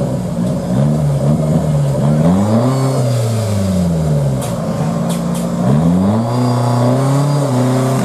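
Off-road 4x4's engine revving up and down repeatedly as it crawls up out of a muddy gully, the revs dropping and climbing several times. A few sharp clicks near the middle.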